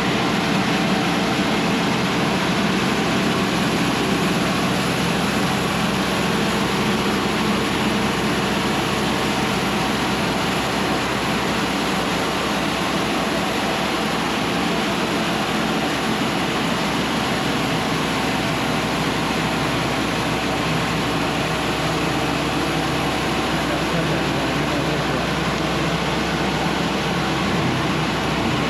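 Diesel-powered Cooks AC-36 bandsaw sawmill running steadily as the saw head feeds through a cut in a log.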